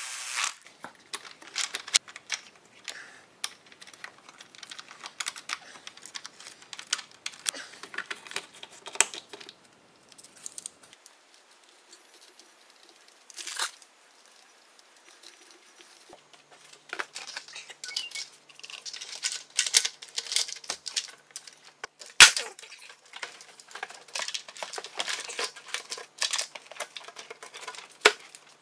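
Irregular clicks, taps and rustles of hand work on an engine: a plastic intake manifold and its rubber gaskets being handled and fitted. One sharp knock, the loudest sound, comes about two-thirds of the way through.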